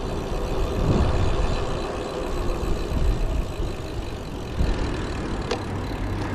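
Wind rushing and buffeting over an action-camera microphone on a moving road bike, the level rising and falling with the gusts. A single sharp click about five and a half seconds in.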